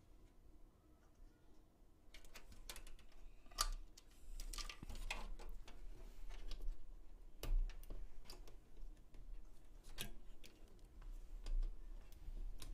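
Small plastic clicks and taps of PC fan cable connectors being handled and pushed into a fan splitter inside a computer case, coming irregularly from about two seconds in.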